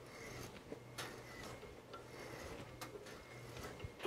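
Hand threading die in a die stock turned onto a 4140 steel shaft, chasing a 14 TPI thread on a finishing pass: faint metal scraping with a few sharp ticks.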